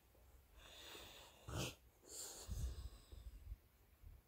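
French bulldog breathing noisily in a few short breaths, the loudest about a second and a half in, the airy, congested breathing typical of a flat-faced breed.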